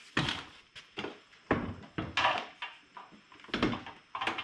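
A series of irregular knocks and clunks as a plastic Solo backpack sprayer, its tank and wand, is handled and set down on a metal table-saw top.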